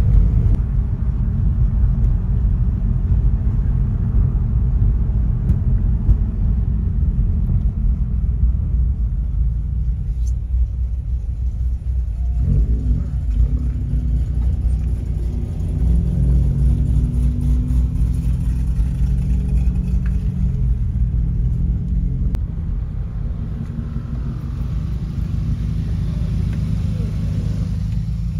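Car engine and road rumble heard from inside the cabin while driving, a steady low drone whose engine pitch shifts about twelve seconds in.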